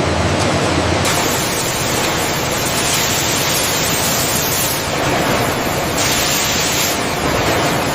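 Loud, steady hissing noise with no clear tones, its character shifting abruptly every second or two.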